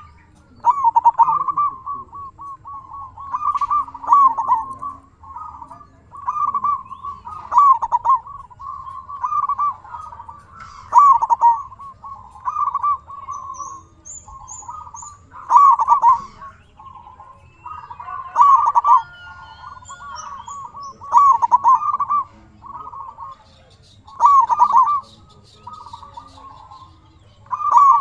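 Zebra dove (perkutut) singing its cooing song: loud phrases of quick rolling coos about every three seconds, with softer coos between them. Small birds chirp faintly and high in the background.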